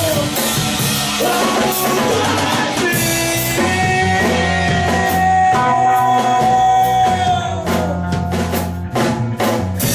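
Rock band playing an instrumental passage with drum kit, bass and guitar. A long note is held through the middle, and a run of hard drum hits comes near the end.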